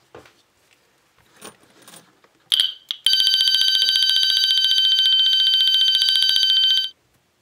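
Fire alarm horn sounding: a short high blip, then a loud, steady high-pitched tone for about four seconds that cuts off suddenly. A few faint clicks come before it.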